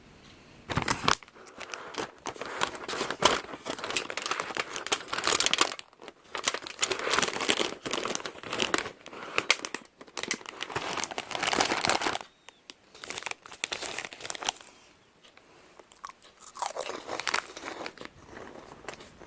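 A person biting and chewing a crisp snack, with dense, crackly crunching. The crunching is heavy from about a second in, eases off after about twelve seconds, and returns briefly near the end.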